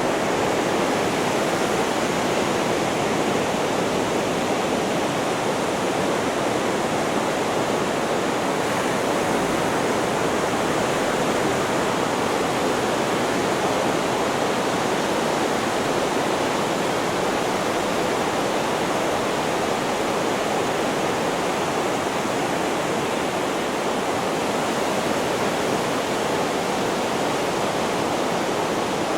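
Steady, even rushing hiss with no rise and fall, strongest in the mid range: an added white-noise track for sleep, used as a bed under the ocean sounds.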